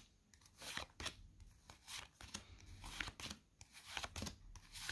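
Pokémon trading cards being handled and flipped through by hand: faint, irregular soft clicks and rustles of card against card.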